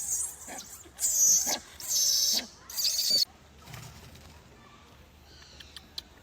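Young macaque screaming in three loud, harsh cries in quick succession, then falling quiet a little after three seconds in. These are the protest screams of an infant being weaned by its mother.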